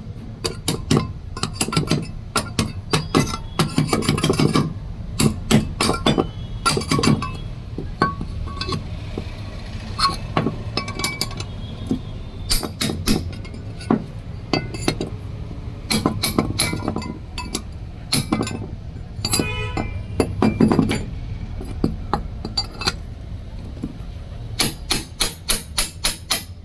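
Steel hub parts clinking and being knocked together by hand, irregular sharp metal clinks throughout. Near the end comes a fast run of light taps, about five a second.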